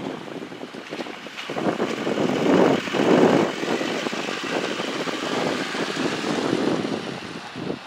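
Wind buffeting the microphone in uneven gusts, strongest about three seconds in.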